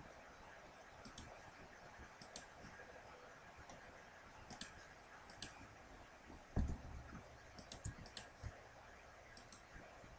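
Faint computer mouse clicks, several in quick pairs, over a steady background hiss, with one low thump about two-thirds of the way through.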